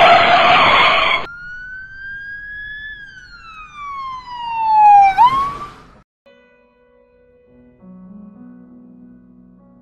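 Sound-effect sequence: a loud noisy burst for about a second, then one whistling tone that rises a little and slides steeply down in pitch as it gets louder, ending in a short sharp hit about five seconds in. Soft sustained music notes follow faintly near the end.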